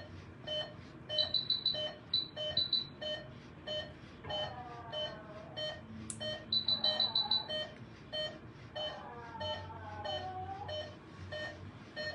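Veterinary anaesthesia monitor beeping steadily with the pulse, about three beeps a second. Twice a faster, higher run of beeps sounds over it, and now and then a faint falling whine.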